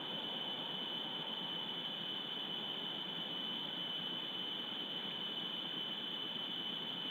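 Steady hiss with a constant high-pitched whine, the electronic self-noise of a wildlife camera's microphone.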